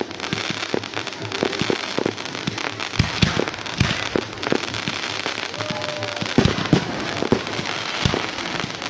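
Fireworks display: aerial shells thumping in quick succession, several times a second at points, over a continuous dense crackle from the bursting stars.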